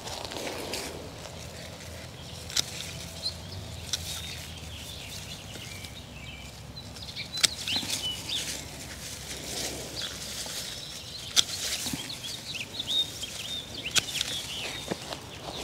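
Hand pruners snipping spent salvia flower stems while deadheading, sharp snips at uneven intervals, with the leaves and stems rustling as the plant is handled.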